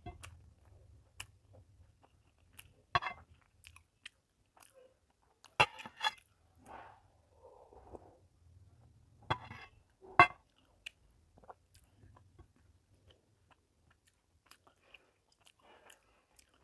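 Close, wet chewing and mouth sounds of a person eating rice and fish curry, with a few sharp lip smacks, the loudest about ten seconds in.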